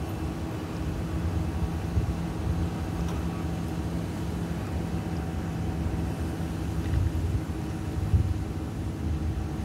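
A truck engine running steadily with a low, even hum.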